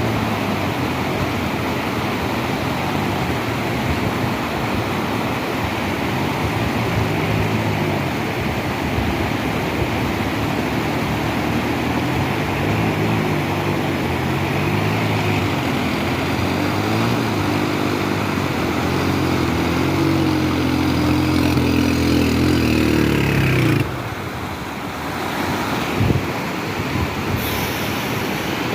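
Steady rush of a waterfall, with a motor vehicle's engine running over it, its pitch shifting up and down, until it cuts off abruptly about 24 seconds in.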